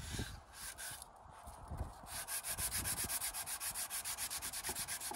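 Hand sanding a glued-in wooden Dutchman patch on a window sash with a piece of sandpaper held under the fingers, to level the patch that is still a little high. A few slow rubs, then from about two seconds in quick, even back-and-forth strokes, about ten a second.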